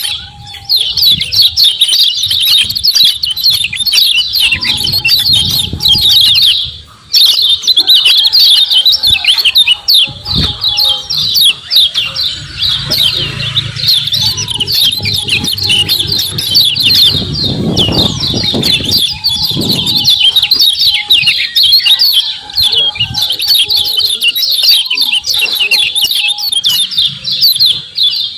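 Kecial kuning white-eye giving its rapid, high 'ciak ciak' chirping calls in a dense, almost unbroken stream, with a short pause about seven seconds in. This is the call kept birds answer by starting to sing. A low rumble sits underneath in the middle stretch.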